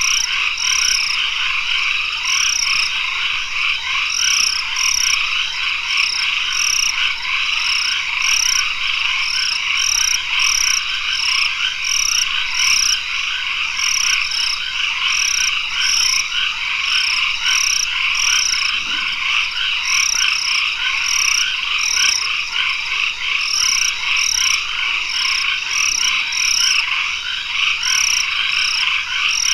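Dense, steady chorus of tropical forest frogs at dusk: a mass of overlapping trilling calls, with a steady high tone and a higher note repeating about twice a second on top.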